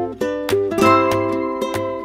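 Background music: a plucked-string tune, several notes a second, over a low pulsing bass note.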